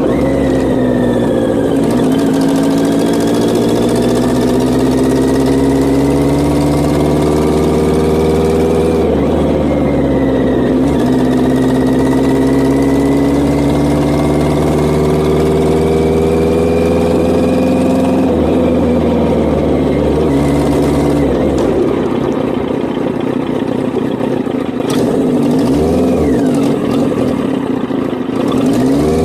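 Yamaha XJ900's air-cooled inline-four engine pulling on the road. Its pitch climbs steadily, drops at a gear change about ten seconds in, and climbs again. It eases off a little before twenty seconds and runs slower and more unevenly near the end.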